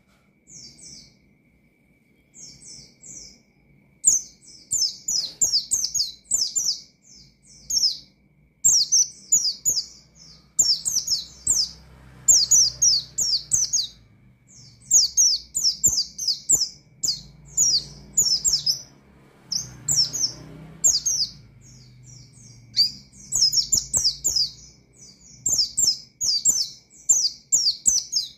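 White-eye (pleci) singing in rapid runs of high, quick chirping notes, phrase after phrase. The song is sparse for the first few seconds, then nearly continuous.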